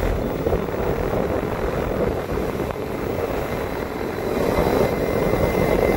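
Three-phase Lennox heat pump condenser running, its outdoor fan blowing a steady rush of air up through the top grille, growing a little louder about two-thirds of the way in.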